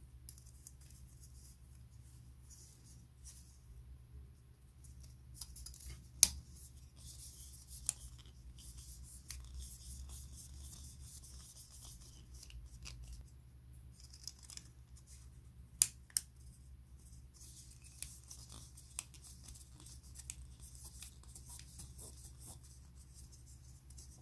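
Hard plastic model-kit parts being handled as a thin red plastic band is worked onto the rim of a white plastic cup: faint rubbing and scraping, with a few sharp clicks, two of them much louder, at about six and sixteen seconds in.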